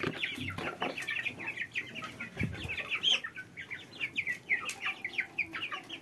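Young Muscovy-cross ducklings and chickens calling over each other as they feed: many short, high peeps, often falling in pitch, mixed with clucking and a few light clicks.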